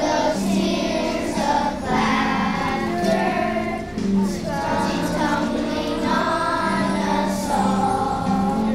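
A choir of third-grade children singing a song together.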